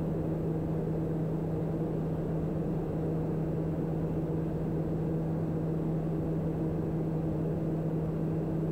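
Daher TBM 960's Pratt & Whitney PT6A turboprop and propeller droning steadily in cruise flight, heard inside the cabin, with a strong, constant low hum.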